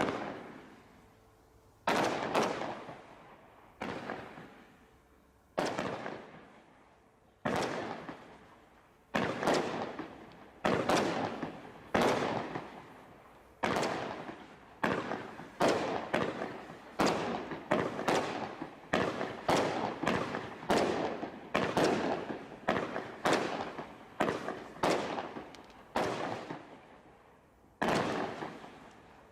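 A firework barrage cake from a Bright Star 'Desert Storm Crate' pack firing shot after shot, each a sharp bang trailing off over about a second. The shots come roughly two seconds apart at first, then speed up to about one a second, with a brief pause near the end.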